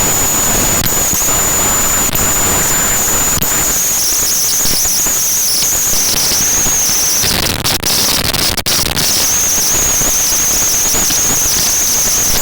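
Loud wind buffeting the microphone: a rough, crackling rush of noise, with a thin steady high whine above it that breaks off briefly about seven seconds in.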